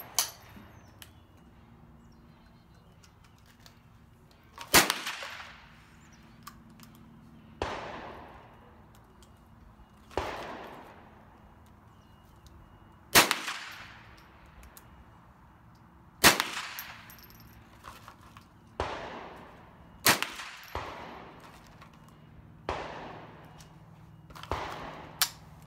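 Gunshots at a shooting range: about nine reports, one every two to three seconds, some sharper and louder than others, each trailing off in an echo.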